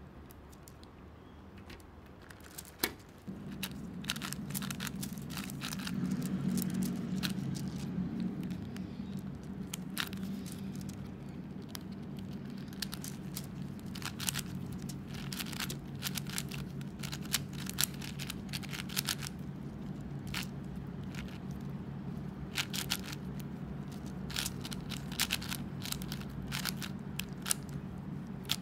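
Plastic pieces of a magnetic Meilong 4x4 speed cube clicking and snapping as the last pieces go in and the layers are turned, an irregular run of sharp plastic clicks and scrapes with one loud snap near the start. A steady low hum runs underneath from about three seconds in.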